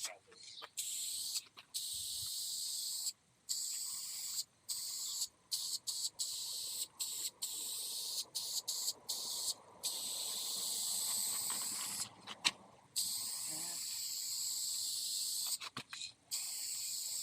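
A steady high hissing, like spraying or fine scraping, that stops and starts abruptly a dozen or more times.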